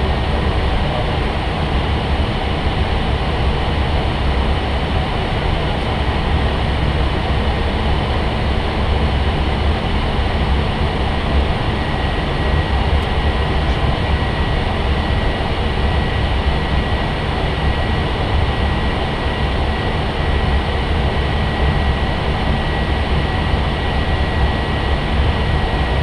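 Steady in-flight cockpit noise on an Airbus A320 flight deck, with a faint steady high tone coming in about halfway through.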